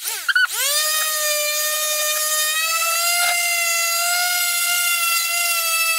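Electric random orbital sander switched on. Its motor whine rises in pitch over the first second as it spins up, then holds a steady pitch while it sands rust off the steel head of a hatchet.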